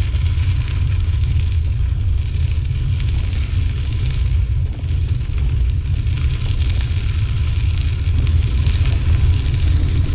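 Steady wind rumble and buffeting on the microphone of a camera carried on a moving bicycle, with a hiss above it, as the bike rolls along a tarmac path.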